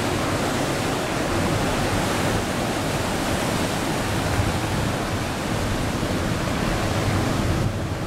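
Steady rush of big surf breaking, mixed with wind on the microphone. Near the end the sound changes suddenly and the hiss goes duller.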